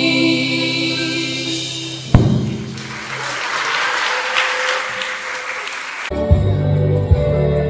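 A girls' choir holds its final chord over a low instrumental accompaniment, then a sharp knock about two seconds in. The audience applauds for about three and a half seconds. Near the end, new music with a steady low bass line starts abruptly.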